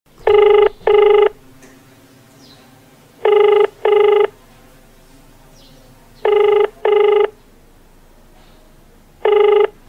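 Telephone ringback tone, the ringing a caller hears while waiting for an answer: three double rings about three seconds apart, then a single ring near the end.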